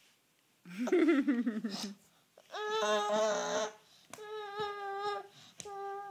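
Baby vocalizing without words: a loud wavering whine that falls in pitch, then two long 'aah' notes held at one steady pitch and a short one at the same pitch.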